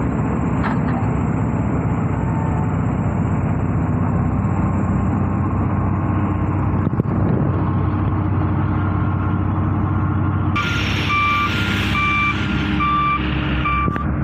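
Diesel engine of a Hyundai wheeled excavator running steadily under load while digging. About three-quarters of the way through, a hiss and a heavy machine's reversing alarm come in, beeping repeatedly.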